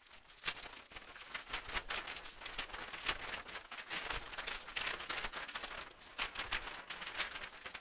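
Title-card sound effects: a quick, irregular run of short noisy swishes and clicks, several a second.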